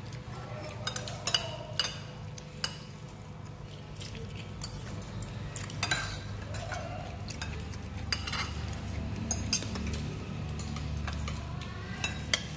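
Metal spoon and cutlery clinking against bowls and plates while eating: a scattering of sharp, irregular clinks over a steady low hum.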